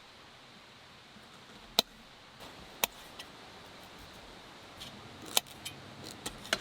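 A few sharp, isolated clicks and taps of small hard objects being handled, then a run of lighter ticks near the end, over a faint steady background hiss.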